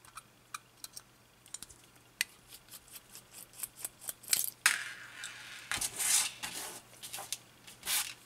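Small metallic clicks and scrapes of a screwdriver working the screws of a clock movement's platform escapement, irregular and sparse at first. From about four seconds in, louder scraping and rustling as the metal movement and its small parts are handled and moved about.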